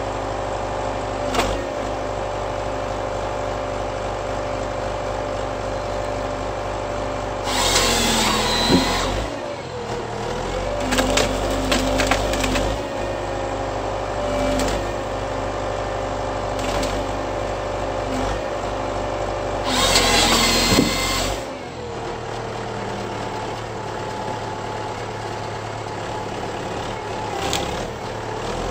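Tractor engine and hydraulics of a Hypro 755 tractor processor running steadily while the head feeds and delimbs a small tree, with branches snapping and cracking. Twice, about 12 s apart, the head's hydraulic chain saw cross-cuts the stem in a louder burst lasting a second or two.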